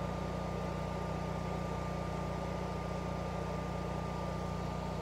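Generac natural-gas home standby generator running steadily under household load, with a low, even engine hum and a thin, steady high whine above it. It holds speed without surging or dying out, so it is not starving for fuel.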